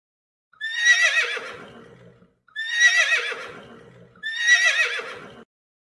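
Horse neighing: three whinnies about two seconds apart, each starting high and trembling, then fading away.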